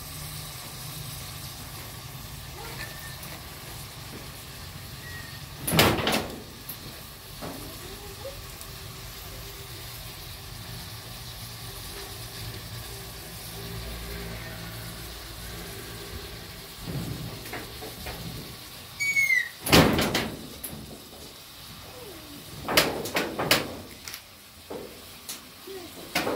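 A few sharp knocks and clatters of cooking utensils being handled at a wood-fired clay stove, the loudest about six and twenty seconds in, with a quicker cluster near the end, over a steady low hum. A short squeaky call sounds just before the second loud knock.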